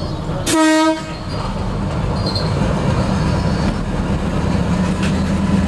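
A single short, loud horn blast from the diesel railcar about half a second in, a clear pitched tone. Then the railcar runs on with a steady low rumble of its engine and wheels on the track.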